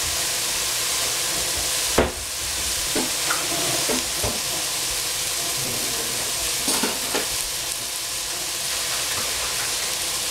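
Shredded cabbage and red capsicum frying in a stainless steel pot with a steady sizzle. A sharp knock comes about two seconds in, with a few lighter clicks later.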